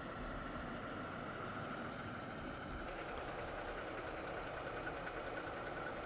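Toyota Tacoma pickup engine idling, a faint steady hum.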